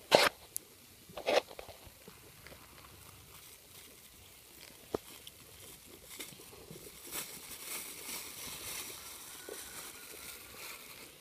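Thin plastic bag crinkling and crackling as it is handled and opened, a light crackle running through the second half. Near the start, two short sharp rustles about a second apart.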